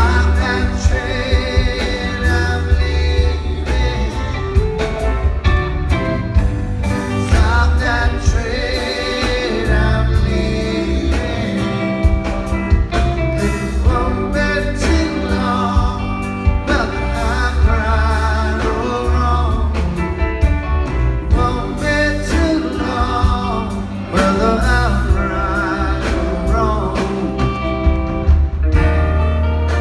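Live rock band playing a song with lead vocals over electric guitars, bass, keyboards and drums, with a heavy bass.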